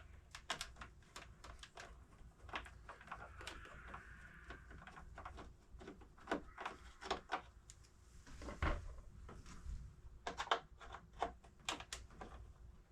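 Screwdriver and hand-tool clicks and taps on a scooter's plastic headset as its Phillips screws are worked out, with a short scrape about three seconds in.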